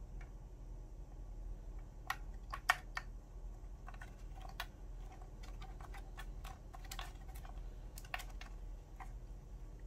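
Light, irregular plastic clicks and taps as a cat paws at a plastic food puzzle toy, knocking its pegs and shifting its disc; the sharpest clicks come in small clusters, a few seconds apart.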